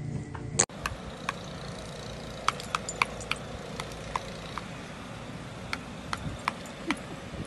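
A single sharp knock about half a second in, then light metallic clicks and ticks at irregular intervals over a steady low hiss, as a dog noses and mouths a metal garden wind spinner.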